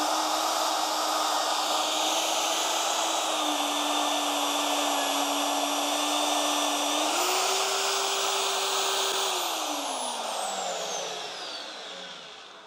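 Vevor magnetic drill's motor running as it drills into a steel tube. It holds a steady whine, sagging in pitch under the cut, then picks up speed about seven seconds in as the load comes off. A couple of seconds later it is switched off and winds down, the whine sinking in pitch and fading.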